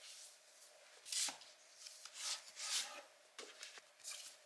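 Paperback books being slid out of a tightly packed wooden bookshelf: several short, faint scrapes and rustles of book covers rubbing against each other and the shelf.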